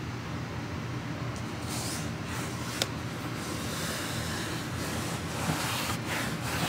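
Hands pressing and smoothing a self-adhesive foam deck mat down onto a plastic kayak deck: faint soft rubbing, with one small click about three seconds in, over a steady background hum.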